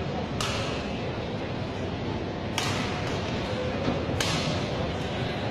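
Badminton rackets striking a shuttlecock in a rally: three sharp hits a couple of seconds apart, over a steady hall background.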